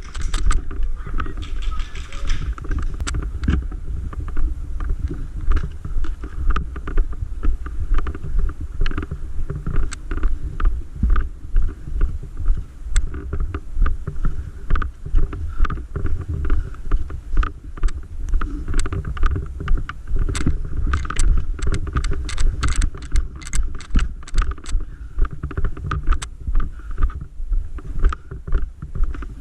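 Walking footsteps heard through a body-worn camera, about two steps a second, with gear knocking and clicking as it moves. Wind rumbles on the microphone underneath.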